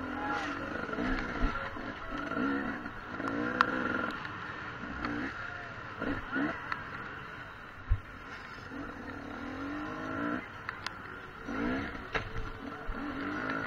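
Dirt bike engine revving up and falling back again and again, with a few sharp knocks, the loudest about eight seconds in.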